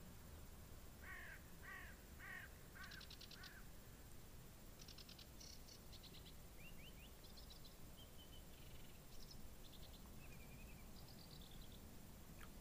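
Faint birdsong of a summer sunrise dawn chorus: a run of five repeated calls in the first few seconds, then several different high, quick songs and trills from small songbirds, over a low steady outdoor background noise.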